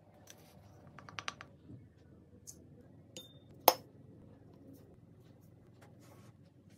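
Tableware clinking: a quick run of light clinks about a second in, then one sharp, louder clink of a spoon against a ceramic bowl a little past halfway, with faint scraping as dry seasoning is spooned into the bowl.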